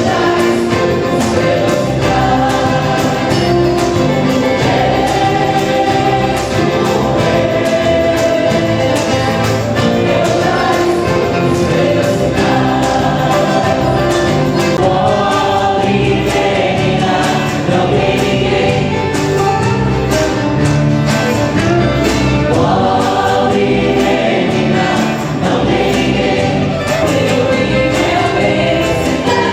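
Group of voices singing in unison or harmony over instrumental accompaniment with a steady beat.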